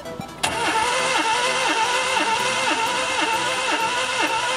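Starter motor cranking a Renault K7M 1.6-litre eight-valve petrol engine during a compression test on cylinder three: a steady whir with an even compression pulse about three times a second, starting suddenly about half a second in and stopping near the end. The gauge reads 8.5 kg/cm² for this cylinder.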